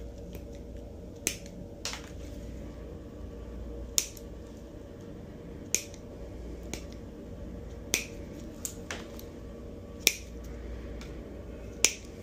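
Stainless steel toenail nippers cutting through thick, fungus-thickened toenails. There are about six sharp snaps roughly every two seconds, with a few fainter clicks between them.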